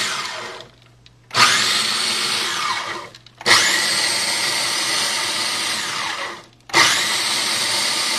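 Food processor pulsed in bursts of two to three seconds, chopping a load of dates, nuts and raisins: the motor starts with a rising whine each time and whines down as it stops, three times restarting after short pauses.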